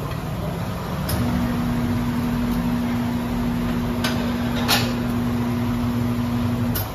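Tyre-changer machine's motor humming steadily as it turns the scooter wheel while the tyre is levered off the rim; it starts about a second in and stops just before the end. A few sharp metal clinks from the tyre lever and rim, the loudest about two-thirds of the way through.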